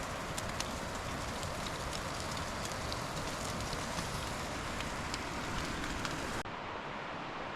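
Camp cooking: a steady sizzling hiss with many small crackles, as of food frying over a fire. About six seconds in it cuts sharply to a steady rush of river water.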